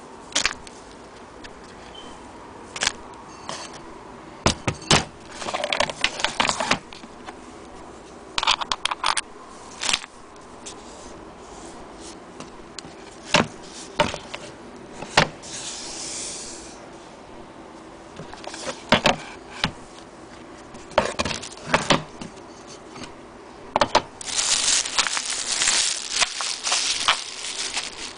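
Plastic bag crinkling and irregular clicks and knocks as a Willcox & Gibbs cast-iron hand crank on its wooden base is unwrapped and handled. The longest spell of crinkling comes near the end.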